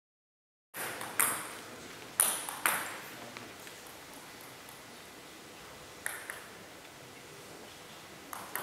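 Table tennis ball being struck and bouncing: a handful of sharp, widely spaced ticks, each with a short echo in a large sports hall. The sound starts after a brief silence.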